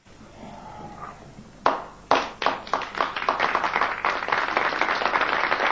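A seated audience applauding: a few single claps about a second and a half in, swelling into steady applause.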